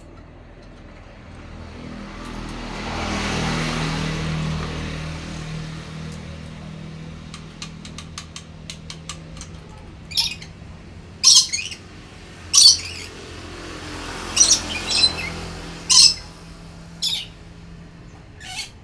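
Lory (nuri parrot) giving about nine short, loud squawks over the second half. A broad swell of noise with a low hum rises and fades a few seconds in.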